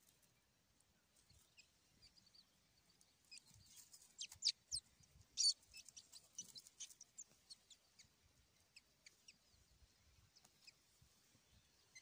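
Day-old quail chicks peeping in short, thin, high chirps that drop in pitch as a hand gathers them from their ground nest. The calls come thickest and loudest in the middle few seconds.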